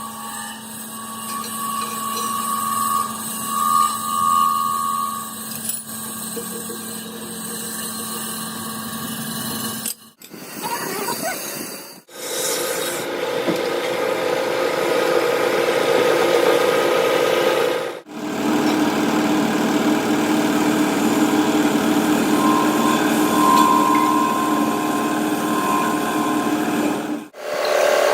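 Power tools working on a metal wheel rim, heard as four clips cut one after another, each a steady running noise that stops abruptly at the cut.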